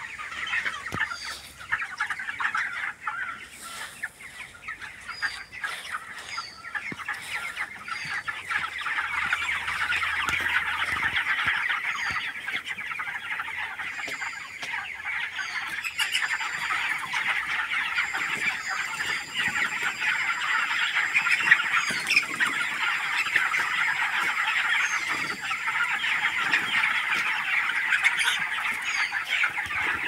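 A large flock of 25-day-old broiler chickens calling together in a dense, continuous high-pitched chorus, which grows louder about a third of the way in.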